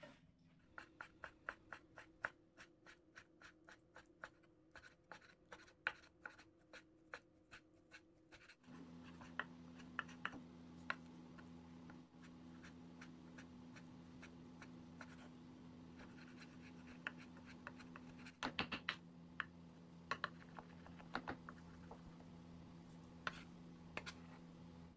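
Kitchen knife chopping raw chicken breast on a wooden cutting board to mince it, quick regular strokes at about three a second, then sparser strokes. A steady low hum comes in about a third of the way through.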